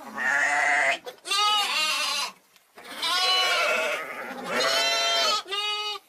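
A young sheep (a hogget) bleating about five times in quick succession, each bleat a wavering call of around a second with short pauses between.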